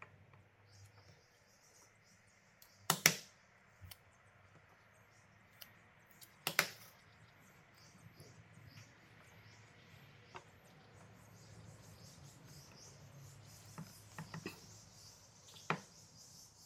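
Small wooden blocks of a magnetic dovetail marking block being handled, giving a few sharp clicks and knocks as they meet each other and the tabletop. The loudest comes about three seconds in, another at about six and a half seconds, and lighter taps follow near the end.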